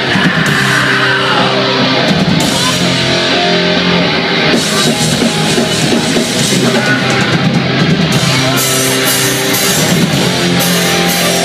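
Hardcore punk band playing loud live: distorted electric guitars, bass and a drum kit with crashing cymbals.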